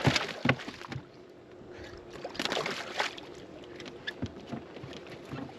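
A few knocks and thumps of gear being handled on a fishing boat, over a faint steady hum.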